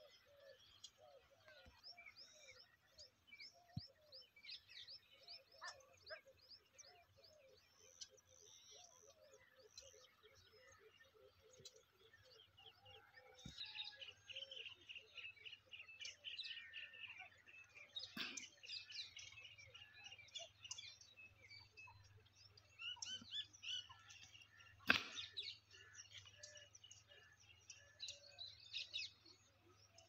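Faint morning chorus of birds chirping and calling, with many short notes overlapping throughout. A single sharp click stands out about 25 seconds in.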